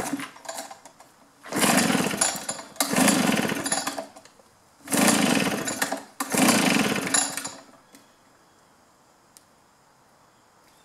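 Recoil starter of a Green Machine (Homelite-made) two-stroke backpack leaf blower pulled four times in two pairs on full choke, each pull lasting about a second as the engine cranks over with good compression. The engine does not fire; the owner later thinks the ignition switch was left off.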